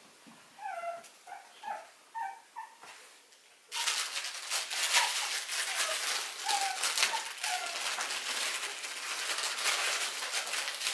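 Five-week-old puppies whimpering in short, high cries for the first few seconds. About four seconds in, a loud, scratchy rustling starts abruptly and carries on, with a few more faint puppy whimpers in it.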